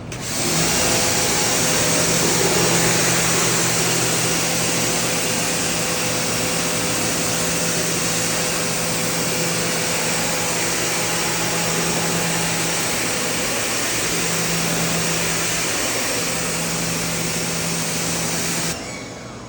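Pressure washer spraying: a steady, loud hiss of the high-pressure water jet over the hum of the machine's motor and pump. It starts abruptly, as the trigger is pulled, and cuts off near the end.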